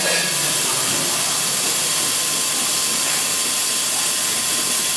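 Laser cutting machine at work on a wooden sheet: a steady hiss of air blowing from the cutting head's nozzle, with a faint steady whine under it.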